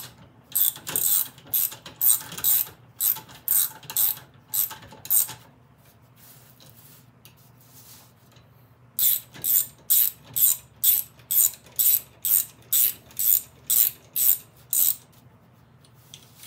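Hand ratchet wrench swung back and forth to run down a bolt in a gear housing, its pawl clicking on each return stroke at about two strokes a second, with a pause of a few seconds in the middle.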